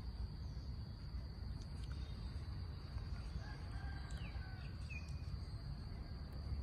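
Quiet outdoor ambience: a steady high-pitched insect drone with a rooster crowing faintly about three seconds in.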